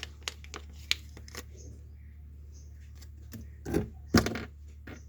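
Small clicks and taps of tools and phone parts being handled during a phone repair, with two louder knocks close together about four seconds in, over a steady low hum.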